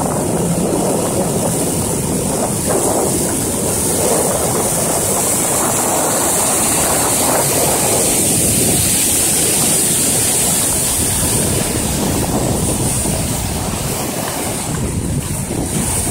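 Steady rush of breaking waves and whitewater in an artificial wave pool.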